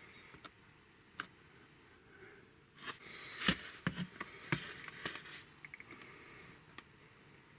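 Plastic blister packaging of a pocket knife being handled and turned over: scattered clicks, then a cluster of crackles and clicks in the middle, the loudest about three and a half seconds in.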